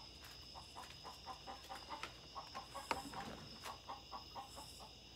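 Faint night-time chorus of insects or frogs: a steady high drone with a short call pulsing about four times a second. A single sharp knock comes about three seconds in.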